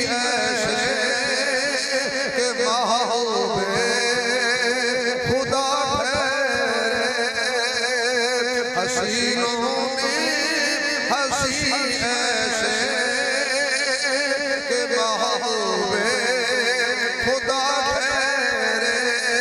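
A man chanting devotional verse in a melodic voice, the pitch wavering and sliding with almost no pauses.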